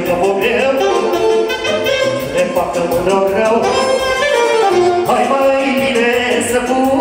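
Loud Romanian folk dance music for a hand-held circle dance (hora): a saxophone-like wind instrument plays an ornamented melody over a steady beat.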